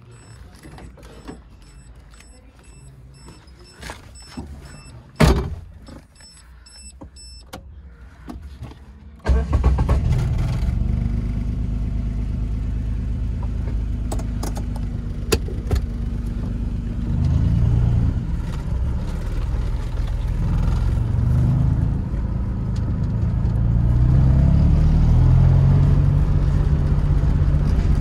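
Suzuki Swift engine starting about nine seconds in, after a few cabin clicks and knocks and a faint repeated beeping, then idling steadily and rising in pitch as it is revved and the car pulls away, heard from inside the cabin. It is a barn-find car's engine running again after being brought back to life.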